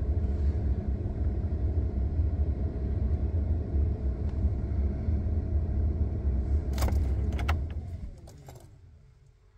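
Cold 5.9-litre Cummins inline-six diesel cranking steadily on the starter without catching. A couple of sharp clicks come near the end, then the cranking stops and the starter winds down with a falling whine.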